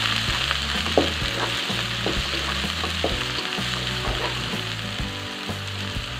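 Chopped shallots, garlic, tomato, chilies and scallions sizzling in hot oil in a nonstick wok while they are sautéed until fragrant. A spatula stirs them, scraping and tapping against the pan a few times; the sharpest tap comes about a second in.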